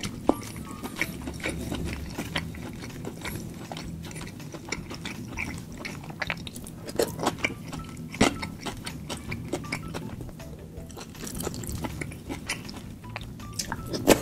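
A person eating saucy shell-out seafood with their fingers: chewing, wet mouth smacks and finger-licking clicks scattered irregularly, over soft background music.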